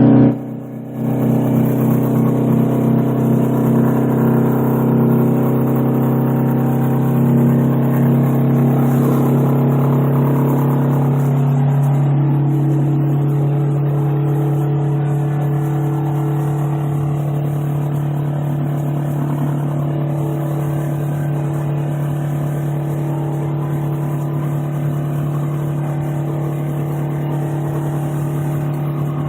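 Straight-piped 8V71 Detroit Diesel two-stroke V8 in a 1980 GMC General semi truck, running under load. Its sound drops out briefly about a second in, then comes back and settles into a steady drone.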